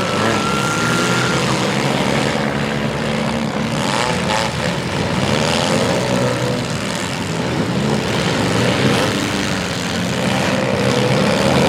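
Several front-wheel-drive demolition derby cars' engines running and revving together in a loud, continuous din, their pitches rising and falling as the drivers rev up and let off.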